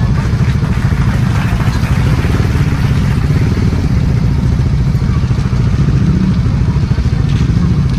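Motorcycle engine idling steadily close by, a fast even low putter with no revving.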